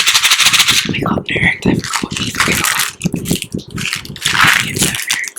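Ice cubes clattering and crunching right up against a microphone: a dense, irregular run of sharp clicks and crackles.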